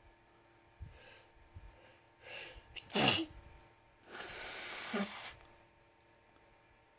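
A person sneezing: a quick intake of breath, then one sharp, loud sneeze about three seconds in, followed by a longer breathy rush of air.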